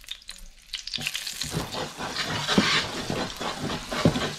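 Butter sizzling and crackling as it melts in hot olive oil in a frying pan; the sizzle builds sharply about a second in as more cubes go in, with a few soft knocks among it.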